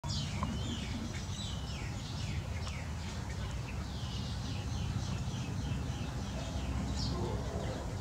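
Small birds chirping: many short chirps falling in pitch, several a second, over a steady low rumble.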